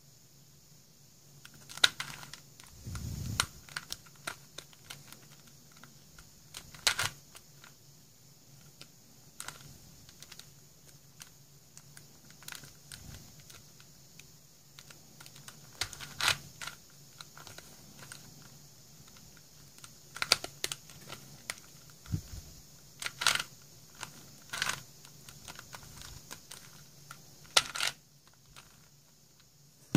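Plastic pieces of a 4-layer Super Square Star twisty puzzle clicking and clacking as its layers are turned by hand, irregular, with a handful of louder clacks and a low thud about three seconds in.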